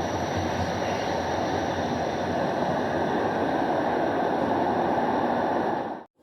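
Toronto transit rail car running, heard from inside: a steady rumble and rush of wheels on the track, which cuts off suddenly near the end.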